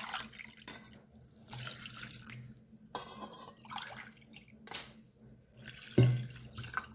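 Water poured from a tumbler into a pot of torn herb leaves and crushed spices, in several separate pours with short pauses between them.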